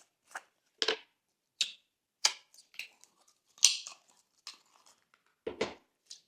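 Glossy slime being squished and pressed by hand, with short, irregular sticky squishes and crackles. A deeper, fuller squish comes near the end.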